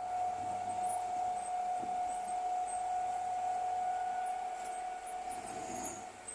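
Komatsu bulldozer running with a steady high-pitched whine over a low engine hum, fading slightly near the end.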